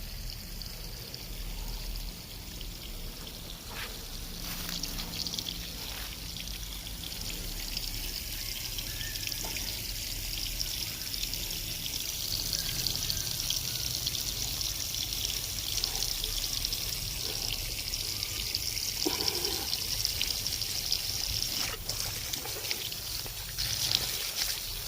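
Water running and pouring steadily through dishwasher drain plumbing as it is flushed to clear a clog.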